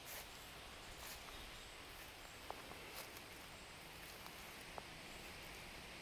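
Quiet outdoor ambience: a faint, steady high-pitched insect drone, with a few scattered soft clicks and rustles of footsteps through grass and twigs.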